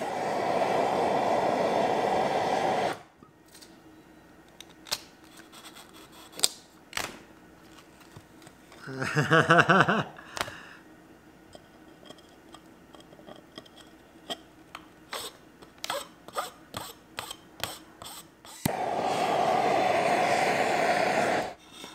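Handheld gas torch burning with a steady hiss for about three seconds, then again for about three seconds near the end, melting carved ice free of a foam mold. In between come scattered clicks and knocks of ice pieces being handled, and a brief squeak about nine seconds in as an ice slab is worked loose.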